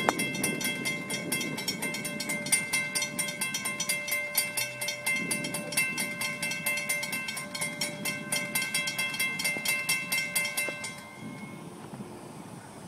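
Railroad grade-crossing warning bell ringing with rapid, even strokes while the crossing gates lower. It cuts off suddenly about eleven seconds in, as the gates come down, leaving a fainter low rumble.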